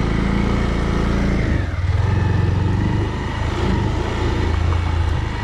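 Motorcycle engine running under way, heard from the rider's seat; its note drops about a second and a half in, then runs steadily.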